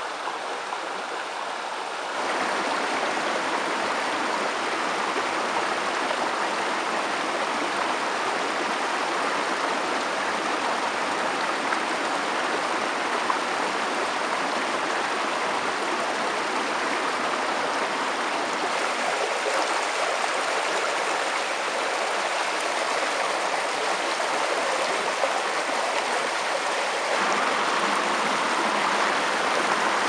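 Shallow rocky stream rushing over stones and small cascades, a steady hiss of flowing water. It jumps louder abruptly about two seconds in, and the water sound shifts again past the middle and near the end.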